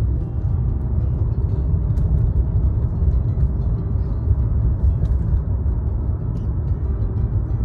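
Steady low rumble, with faint scattered ticks above it.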